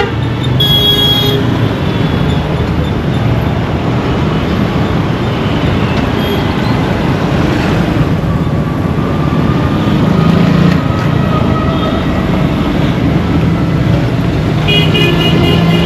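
Busy road traffic: a steady mix of engines and road noise, with vehicle horns sounding briefly about half a second in and again near the end.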